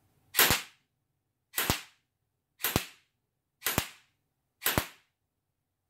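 Airsoft gun firing five single shots, about one a second, each a sharp crack with a short fading tail.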